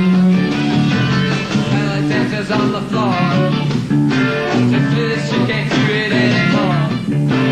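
Rock band playing live, with electric guitar and keyboards over a full band, and a male voice singing into it.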